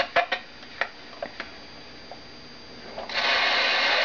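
Sharp plastic clicks and knocks from a vintage Lloyd's AM/FM clock radio being handled and its controls worked. About three seconds in, the radio's speaker suddenly cuts in loud with broadcast sound.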